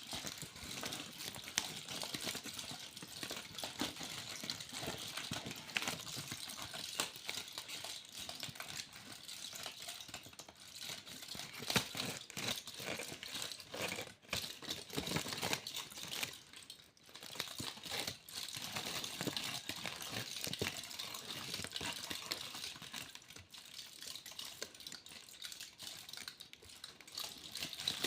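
Aluminium foil being crinkled and crumpled close to the microphone: a dense, continuous crackle of many small clicks, easing off briefly twice about halfway through.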